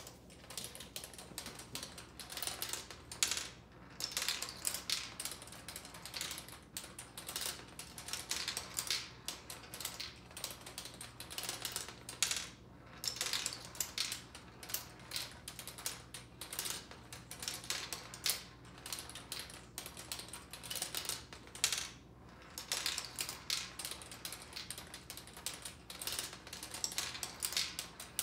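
Turing Tumble marble computer running: small red and blue balls rolling down its plastic board, flipping its plastic bits and gears and dropping into the collecting trays. The result is a rapid, irregular clatter of clicks, broken by a few short pauses.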